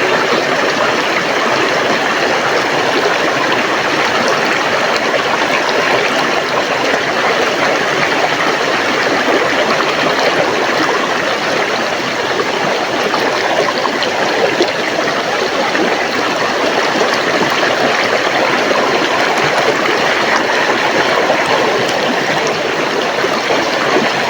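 A river flowing: steady rushing and gurgling of running water, loud and unbroken.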